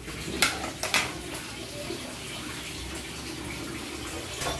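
A metal ladle clinks twice against the wok about a second in, then a steady wet sloshing as it works stuck pieces of ox feet apart in thick kare-kare sauce.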